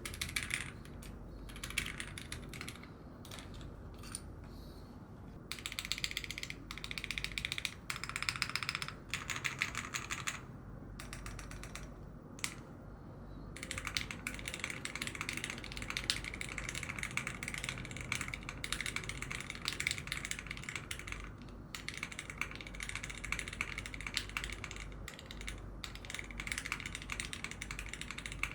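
Typing on a mechanical keyboard fitted with PBT keycaps: fast, continuous keystroke clacking with a few short pauses between bursts.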